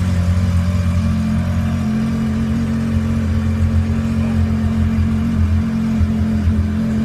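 Yamaha Viper snowmobile's 1049 cc three-cylinder four-stroke engine idling steadily, an even low hum with no revving.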